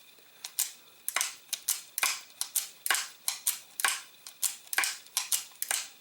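Rossi Circuit Judge revolver-action trigger and hammer mechanism clicking as the trigger is worked over and over, sharp metallic clicks coming in quick pairs about twice a second, working freshly applied oil into the trigger.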